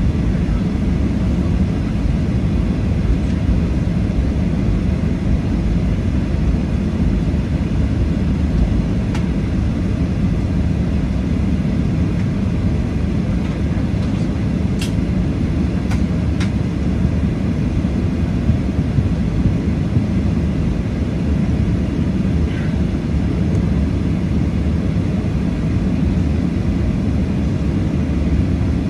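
Steady low cabin rumble of a Boeing 737-800 with its CFM56-7B engines running, at an even level throughout. A few faint clicks sound over it, the sharpest about halfway through.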